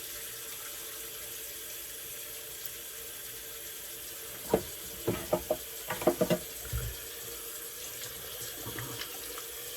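Tap running steadily into a bathroom sink, with a cluster of splashes and knocks about halfway through.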